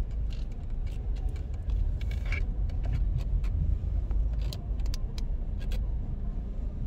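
A car driving slowly, heard from inside the cabin: a steady low rumble of engine and tyres, with scattered light clicks and rattles.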